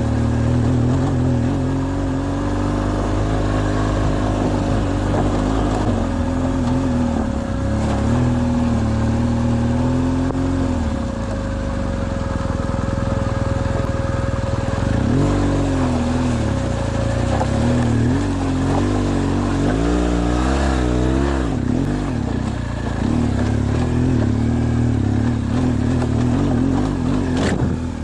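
BMW R1200GS flat-twin boxer engine pulling at low revs over rough ground, its pitch rising and falling with throttle, with a run of quick throttle blips about two-thirds through.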